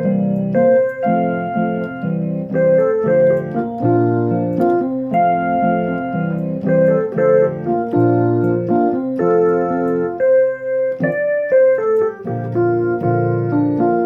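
Instrumental passage on a keyboard with a piano sound, playing held chords over a bass line that change about once a second.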